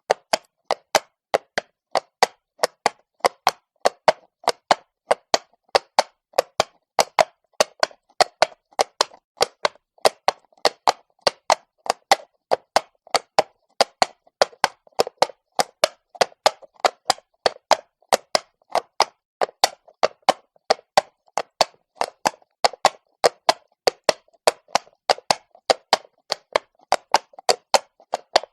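A horse's hooves striking stone at a walk: a steady clip-clop of sharp knocks, about three strikes a second, with nothing else between the steps.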